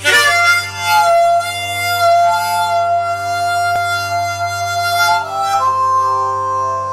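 Harmonica played with cupped hands: a loud attack, then long held notes that shift higher a little past five seconds in. A steady low drone sounds underneath throughout.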